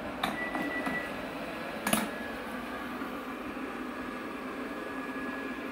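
A steady mechanical hum with a faint high whine. Two sharp clicks about a second and a half apart: the first comes just after the start and is followed by a brief high tone, and the second, near two seconds in, is the loudest sound.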